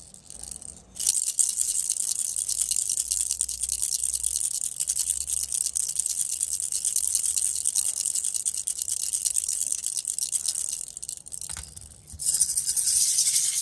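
A baby rattle shaken steadily, making a dense, fast, high rattle. It starts about a second in, stops briefly after about ten seconds, then starts again.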